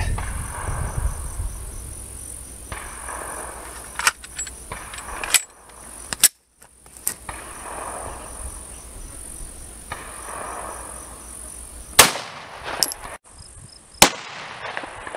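Two sharp 9mm pistol shots from a Beretta APX Compact, about two seconds apart near the end, with a few fainter clicks earlier. A steady high insect buzz runs underneath.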